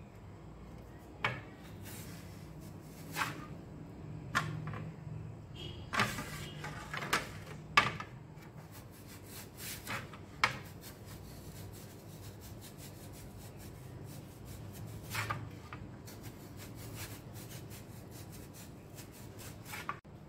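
A potato being sliced on a metal mandoline slicer over a wooden tray: a series of irregular scraping strokes, each ending in a sharp click, with a busier run about six to eight seconds in.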